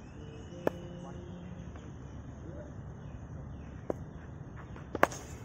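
Sharp knocks of a hard cricket ball against a wooden bat during batting practice: one about a second in, a lighter one later, and the loudest as a quick double knock near the end.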